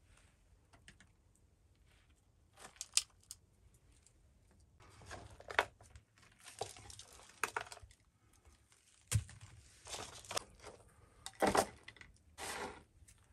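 Hard baked crust around a roast chicken being broken apart by hand in a metal pan: irregular crunching and crackling as chunks snap off and are pulled away, with a few sharp knocks, the loudest about nine seconds in and again near the end.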